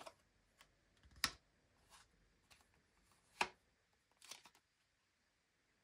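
Scattered soft clicks and snaps of a small deck of oracle cards being handled as cards are drawn from it, with two sharper ticks, one about a second in and one past the middle, between quiet stretches.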